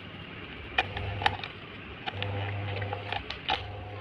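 A table fan's push-button speed switches clicking as they are pressed, several sharp clicks in a row, with the fan motor's low hum coming on and going off between presses.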